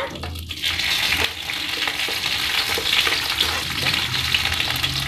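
Fresh curry leaves frying in hot oil with mustard seeds in a kadai: a steady sizzle that sets in about half a second in, dotted with small crackles.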